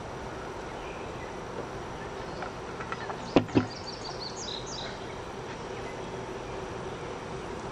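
Outdoor nature ambience with a steady faint hum underneath. A little before the middle come two sharp clicks, followed by a quick run of short, high bird chirps.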